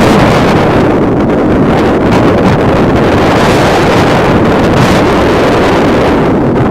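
Wind buffeting the microphone: a loud, steady rumbling rush that flutters unevenly.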